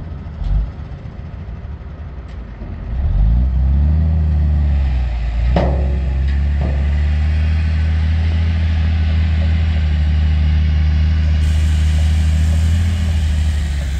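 Diesel engine of a tandem-axle dump truck revving up about three seconds in, then running steadily under power as the truck pulls away with its bed lowering. There is a single sharp clank near the six-second mark, and the engine fades slightly near the end.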